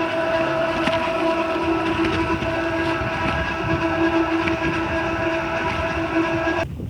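A machine running with a loud, steady hum and rattle, switched off abruptly near the end.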